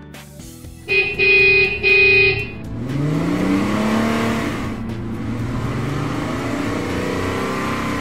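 Two short car-horn honks about a second in, then a car engine revving up and running steadily.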